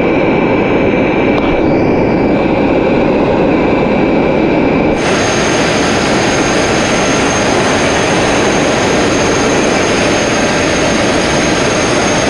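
Abrasive blasting equipment running loud and steady with a rush of compressed air. About five seconds in, a harsher, brighter hiss sets in as the blast nozzle fires grit at full pressure.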